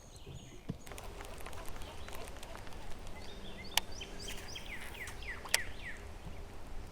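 Birds calling: a run of short, quick downward-sliding chirps starting about halfway through, with two sharp clicks among them, over a low steady outdoor rumble.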